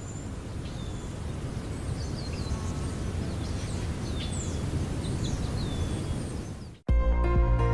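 Outdoor ambience of birds chirping over a low steady rumble. About seven seconds in it cuts off suddenly and electronic music begins.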